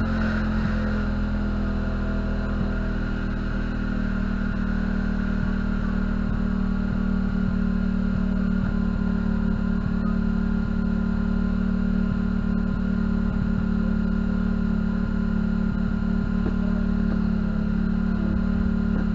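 Powered-up Microlab computer speaker system giving out a loud, steady hum instead of sound. The repairer traces the fault to a burnt-out IC on its amplifier board.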